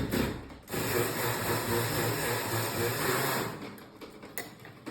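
Small handheld power tool buzzing steadily for about three seconds, then stopping.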